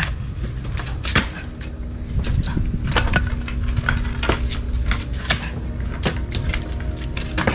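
Hammer knocking irregularly, about one or two blows a second, on a workpiece resting on a concrete kerb, over a steady low rumble.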